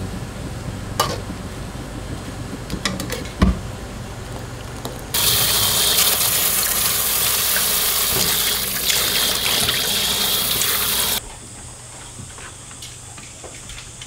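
Water rushing into a stainless steel bowl as blanched greens are rinsed and swished by hand; the rush starts suddenly about five seconds in and cuts off about six seconds later. Before it, the greens are lifted out of boiling water with a wire skimmer, with a few sharp knocks.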